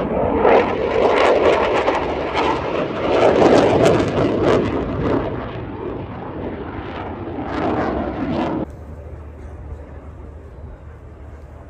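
Saab JAS 39 Gripen fighter jet's engine during a display pass, loud and swelling and fading as the jet manoeuvres overhead. About nine seconds in the sound drops suddenly to a much fainter, steady jet noise from far off.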